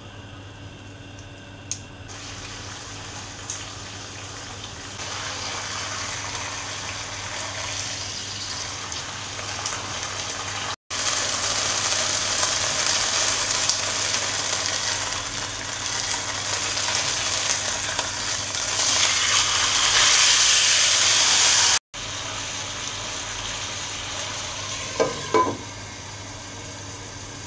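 Chicken thigh frying skin side down in a nonstick wok: a steady sizzle that grows louder, with metal tongs moving the pieces in the pan. Near the end the sizzle is quieter and a glass lid clinks twice onto the pan.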